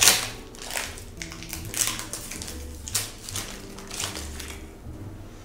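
Plastic wrapper crinkling as a block of black fondant is torn out of its package, in several short rustles about a second apart; the loudest is right at the start.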